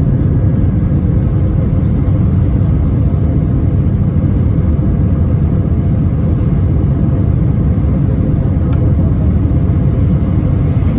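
Steady low rumble inside the passenger cabin of an Airbus A320-231: the noise of its IAE V2500 engines and the airflow over the fuselage, unchanging throughout.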